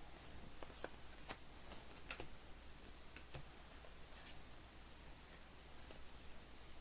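Faint scattered clicks and light taps of trading cards being handled and sorted in a quiet room, about a dozen small irregular sounds.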